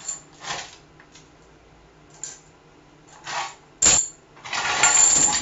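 Metal objects being handled: scattered light clinks, a sharp clank about four seconds in, then a second-long metallic rattle near the end.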